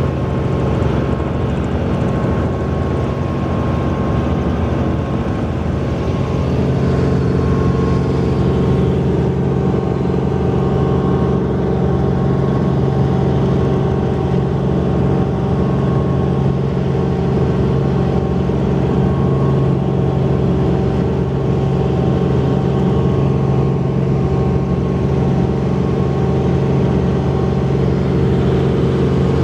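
Helicopter engine and rotors heard from inside the cabin in flight: a loud, steady drone with a constant hum and no change in pitch.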